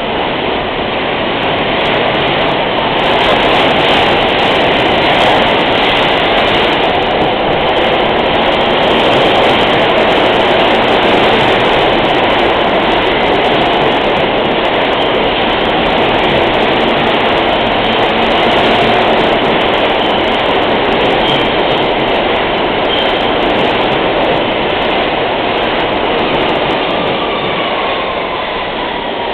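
An R160 New York City subway train with Siemens propulsion pulling into a station along the platform: loud, steady running noise of its wheels on the rails. The noise swells over the first few seconds as the train comes in, and a falling whine appears near the end as it slows.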